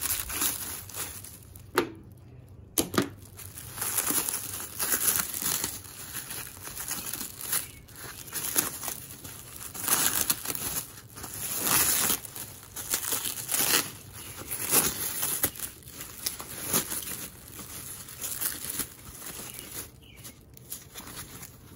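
Clear plastic packaging wrap crinkling and tearing as it is pulled off a new motor mount by hand, in irregular rustling bursts with a brief pause about two seconds in.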